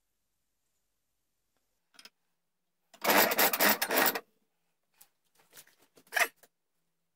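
Steel bench vise being cranked shut on a small brass piece: a loud rattling burst of a little over a second as the screw spins, then a few light metallic clicks.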